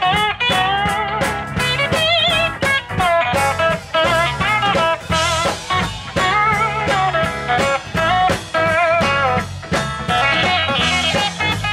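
Live sacred steel band: a steel guitar plays sliding, wavering lead lines over electric bass, electric guitar and drums, in a blues-gospel groove.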